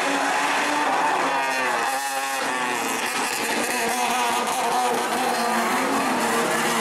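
Race car engines running hard through a corner, their pitch wavering up and down as the drivers lift off and accelerate again.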